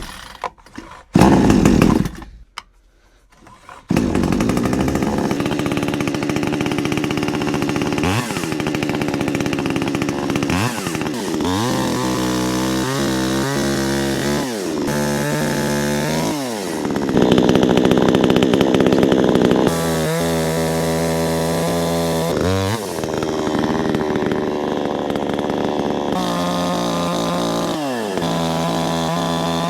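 VEVOR 52cc two-stroke gasoline chainsaw cold-started by pull cord. A short burst about a second in is followed by a pause, then the engine catches about four seconds in and keeps running, its pitch revved up and down again and again.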